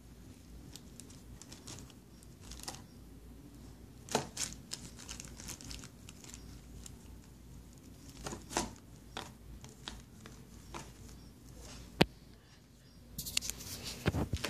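Plastic bread bags crinkling as a cat noses and paws through them, in scattered crackles, with one sharp click about twelve seconds in and a busier run of crackling near the end.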